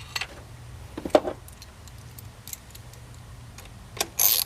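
Small metal clicks and a knock about a second in as the throttle body bolts and socket are handled, then a 1/4-inch drive ratchet starts clicking near the end as the 8mm bolts are run down.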